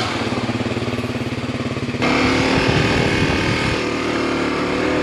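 Kawasaki dual-sport motorcycle engine running steadily while the bike is ridden at low speed. The engine note changes abruptly about two seconds in.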